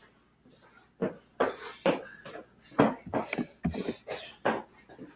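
A series of irregular knocks and clatters, about a dozen short hits, starting about a second in.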